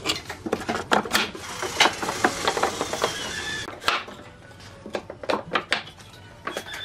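Wooden boards being handled against a wooden frame and worktable: a run of light knocks and clatters, with a stretch of rubbing noise about two seconds in.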